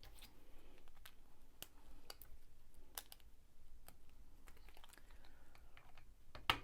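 Plastic Lego pieces being handled and pressed together: a scattering of small, sharp clicks, with one louder click near the end.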